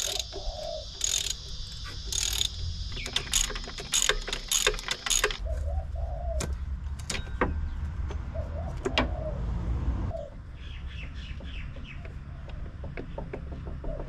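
Hand tools clicking and metal clinking against the crank pulley as the loosened crank pulley bolt is backed out and the pulley worked off. The clicks come in a quick irregular run a few seconds in, then singly. A dove coos several times behind it.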